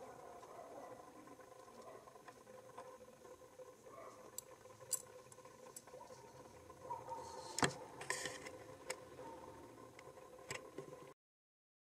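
Quiet room tone with a faint steady hum and a few light clicks of steel tweezers on the gem and its box, the sharpest about seven and a half seconds in. The sound cuts off to silence near the end.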